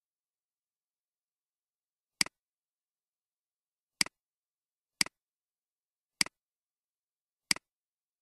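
Five computer mouse clicks at uneven intervals of one to two seconds. Each is a short sharp click followed at once by a softer second click, the press and release of the button.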